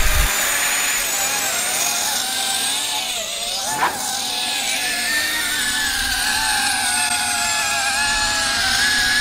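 Motors and propellers of an iFlight Megabee v2 cinewhoop FPV drone whining as it spins up on the grass and lifts off. The sound is several high whining tones that waver with the throttle, with one brief sharp spike about four seconds in.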